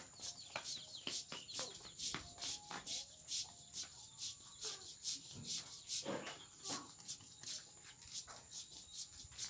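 Hands kneading a soft lump in an aluminium basin, a regular scraping and rubbing of about three strokes a second.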